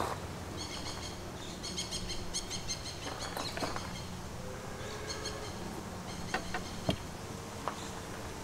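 Rapid runs of high, pulsed chirping calls from wild animals in the background. Light knocks and clicks of a wooden stick and cord being handled on a plank table, the sharpest a little before the end.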